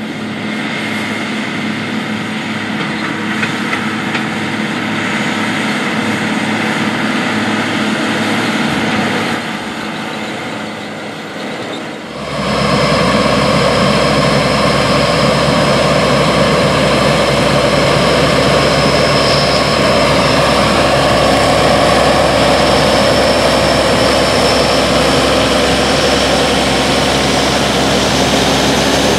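Case IH 430 Steiger four-wheel-drive tractor's diesel engine running steadily as it works a field. About 12 seconds in, the sound cuts to a louder, steady machinery noise: a Case IH 385 Steiger pulling a grain cart beside a combine that is unloading corn into it.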